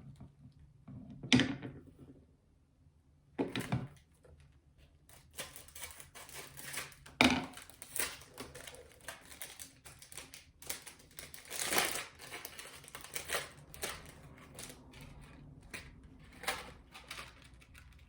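Small item's packaging being handled and opened by hand: irregular crinkling and rustling with several louder crackles, the loudest about a second in, near seven seconds and near twelve seconds.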